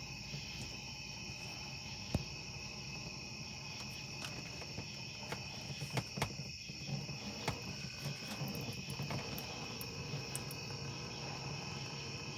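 Crickets chirping steadily in the background, with a few faint clicks now and then.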